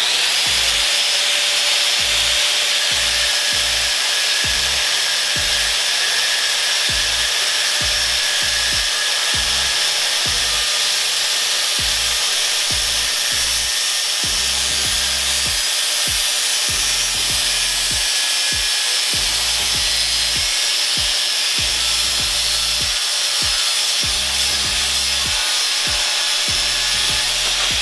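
A power tool cutting a steel pipe to length: a steady, loud, gritty high noise that spins up with a rising whine as it starts and winds down with a falling whine at the end.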